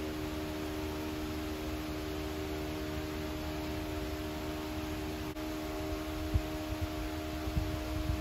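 Steady mechanical hum with a hiss, like a fan or motor running, holding a constant level; a few soft low thumps of handling come in the second half.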